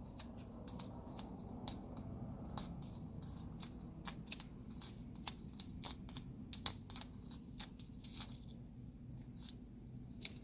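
Small, irregular clicks and scrapes of a tool or fingernail picking at the edge of a serial-number sticker stuck on a phone part, over a faint steady low hum.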